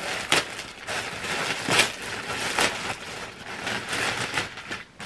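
Packaging and fabric rustling and crinkling as a garment is pulled out and unwrapped by hand, with a few sharper crackles over a steady rustle.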